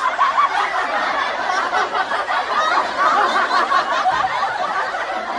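A group of people laughing together, many overlapping chuckles and snickers in a steady, unbroken stretch.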